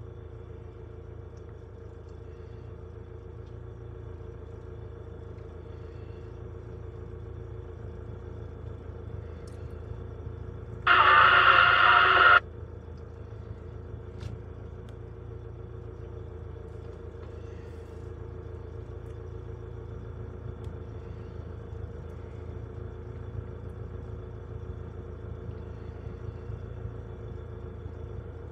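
Steady low diesel rumble of idling heavy equipment, heard from inside a log truck's cab while a Cat 538 log loader works. About eleven seconds in, a loud burst of noise lasting about a second and a half starts and stops abruptly.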